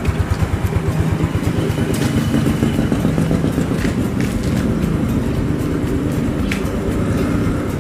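Single-cylinder engine of a 2006 Yamaha Mio One scooter idling steadily with an even, fast low pulse, with a few light clicks over it.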